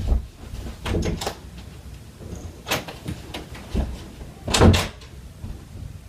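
A door being opened and shut, heard as a few separate thuds and knocks, the loudest about three-quarters of the way through.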